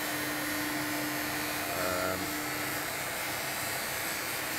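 Dean Smith and Grace centre lathe running steadily during a finishing thread-cutting pass, an even mechanical whir with a low steady hum that drops out about two-thirds of the way through.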